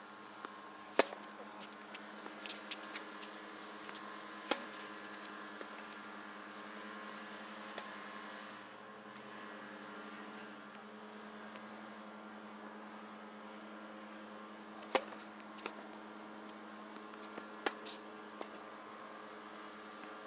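Tennis ball struck by racket during a baseline rally: a handful of sharp pops, four of them loud and spread through, with fainter hits and bounces between, over a steady low hum.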